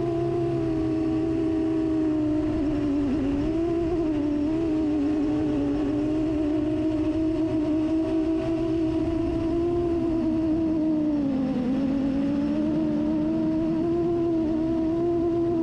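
FPV quadcopter's motors and propellers buzzing steadily, the pitch wavering up and down with throttle and dipping briefly about eleven seconds in.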